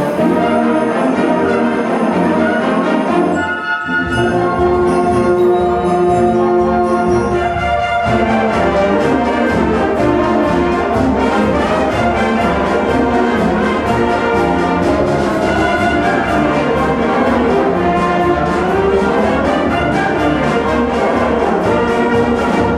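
A band playing Christmas music, with sustained chords and a steady rhythmic pulse from about eight seconds in.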